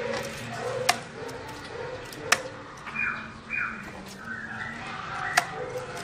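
Caged black-throated laughingthrush (Garrulax chinensis) giving short calls: soft low notes and higher, sliding notes. Three sharp clicks, the loudest sounds, come about a second in, past two seconds and past five seconds.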